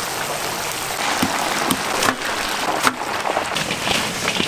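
Chicken deep-frying in oil in a cast-iron cauldron: a loud, steady sizzle with scattered pops and crackles.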